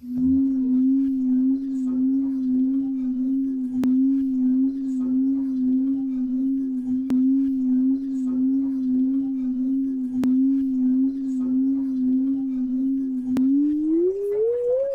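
Cartoon sound effect of a whistle cap coming off: a steady pure tone held for about thirteen seconds with a slight waver, then gliding upward in pitch near the end.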